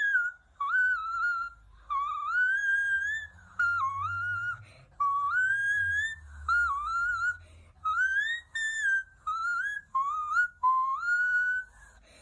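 Whistling: a tune made of short sliding, warbling whistled phrases, each well under two seconds, with brief gaps between.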